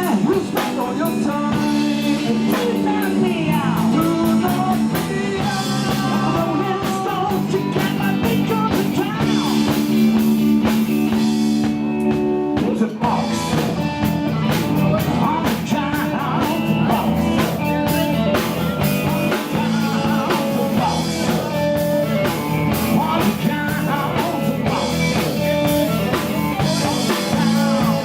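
Live blues rock band playing, with guitar and drum kit keeping a steady groove.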